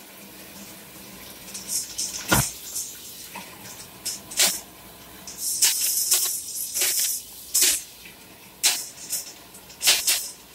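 Kitchen faucet running into a plastic bowl as raw Cornish hens are rinsed in cold water, with repeated short splashes and a few knocks from handling.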